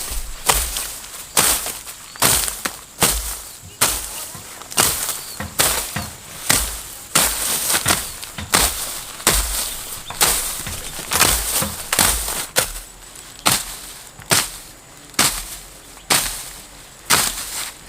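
A hand tool chopping repeatedly, sharp strikes at a steady pace of a little more than one a second, some coming in quick pairs.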